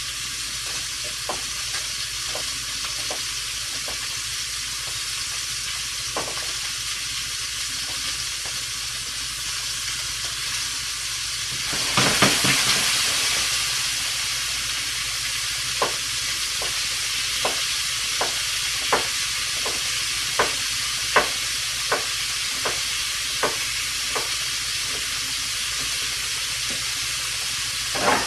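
Butter sizzling steadily in a hot frying pan. About twelve seconds in, the sizzle surges loudly as thin strips of raw beef go into the pan, then settles. Later come about ten sharp knocks, roughly one a second.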